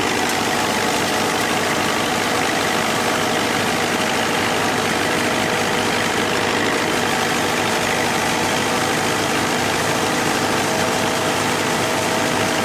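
Engine of a farm machine running steadily at a constant speed, with no change in pitch or load.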